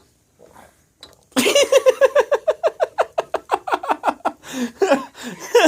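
Laughter, starting about a second and a half in: a long, rapid run of high-pitched "ha-ha" pulses, about seven a second, trailing off into looser giggles.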